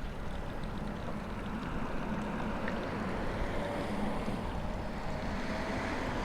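Mercedes-AMG SL63's electric soft-top mechanism running as the fabric roof closes by remote key: a steady mechanical whir with a low hum, and a faint whine about halfway through.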